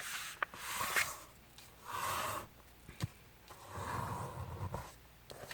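A sheet of paper being folded and creased by hand: three soft rustling swishes with a few small, sharp crackles.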